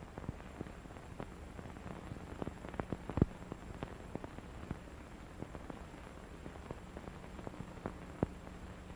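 Crackle and scattered clicks over a steady low hum and hiss: the background noise of an old, worn recording with no music or voice on it. One click about three seconds in is louder than the rest.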